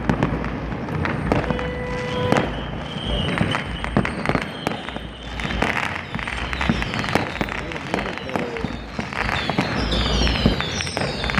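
Fireworks and firecrackers going off all over the city at once: a dense, unbroken jumble of bangs and crackles, with several short falling whistles near the end.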